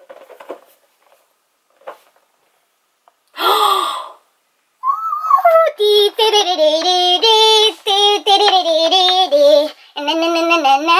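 A woman singing unaccompanied from about five seconds in, a run of held notes with no instruments. A short burst of sound comes about three and a half seconds in.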